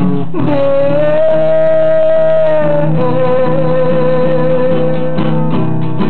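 Acoustic guitar strummed under a man's voice holding a long wordless note, which steps down in pitch about three seconds in.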